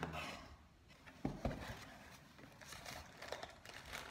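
Cardboard box flaps and a plastic-bagged accessory being handled: crinkling of the plastic bag and rustling cardboard, with a couple of sharp knocks about a second and a half in.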